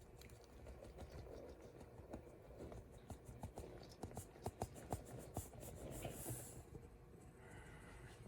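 Faint scraping and a run of light taps as dry flour is poured and scraped from one bowl into another holding yeast water, the taps thickest in the middle.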